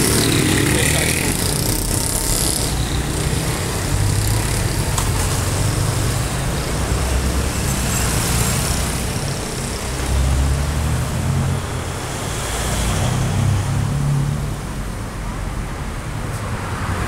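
City street traffic at an intersection: car and motorcycle engines running steadily, with vehicles moving off and passing close by.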